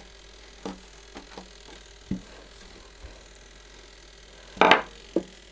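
A wooden rolling pin working soft dough on a table, giving a few light knocks, then a louder pair of knocks near the end.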